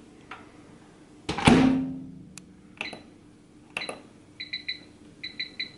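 Built-in microwave oven door shut with a thump about a second in, followed by a few clicks and then a run of short electronic beeps in quick succession as the control dial is turned to set the cooking time.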